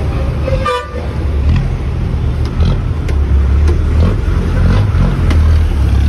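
Busy road traffic: vehicle engines running with a loud steady rumble, and a short horn toot a little under a second in.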